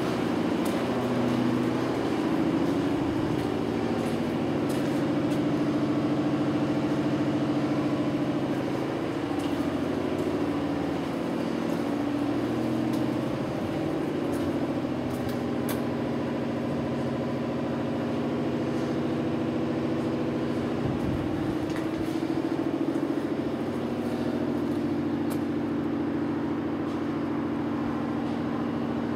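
A steady machinery drone, engine-like, with several low tones held throughout.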